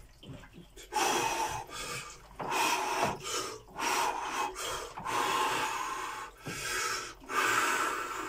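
A man breathing in quick, heavy gasps, about one breath a second, starting about a second in: the cold-shock breathing response on sinking into ice water.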